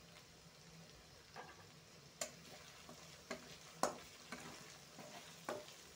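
Onions and whole spices frying in oil in a metal kadai with a faint steady sizzle, while a metal spatula stirs them. The spatula knocks and scrapes against the pan about once a second, in sharp clicks, the loudest about four seconds in.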